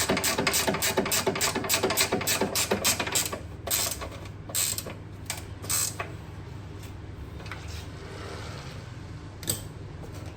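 Hand ratchet wrench clicking rapidly, about six clicks a second, as a suspension bolt is turned; it stops about three seconds in, followed by a few separate metallic clicks and knocks.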